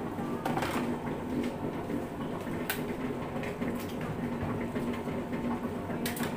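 Electric dough mixer running steadily, its motor humming as the paddle churns minced chicken dim sum filling, with a few short sharp clicks over the top.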